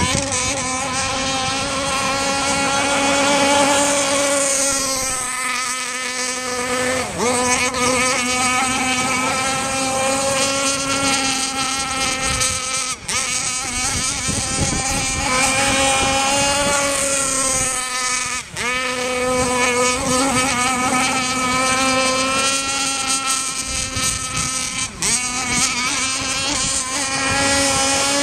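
Two-stroke Zenoah gas engine of a radio-controlled mono hull racing boat running at speed, its high buzzing note wavering in pitch as the boat passes and turns. The pitch drops sharply and recovers twice, about a quarter of the way in and about two-thirds through.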